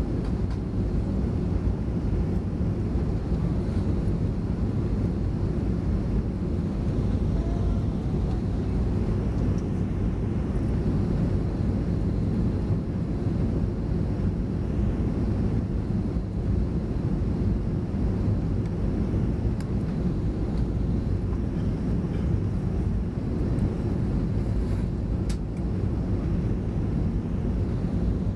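Steady cabin noise of a Boeing 737-400 on approach: the low, even rumble of its CFM56 engines and the airflow over the fuselage, heard from inside the cabin.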